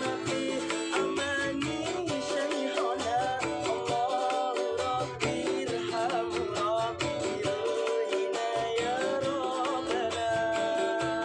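Live music: a voice singing a wavering, ornamented melody over plucked string accompaniment and a pulsing bass line.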